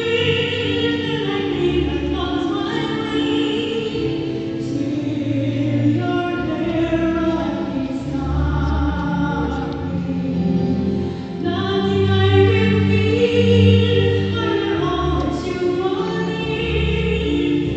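Church choir singing in harmony, with long held chords that shift from one to the next.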